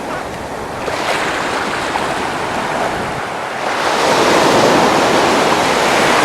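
Ocean surf: waves breaking and washing up the beach, with wind buffeting the microphone. The wash swells noticeably louder a little past halfway.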